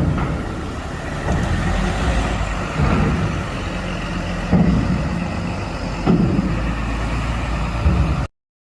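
Bus engine running steadily, with a brief louder bump about every second and a half, cutting off abruptly near the end.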